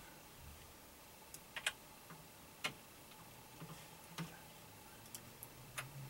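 Low room hiss with scattered small sharp clicks at irregular intervals, the loudest a close pair about a second and a half in.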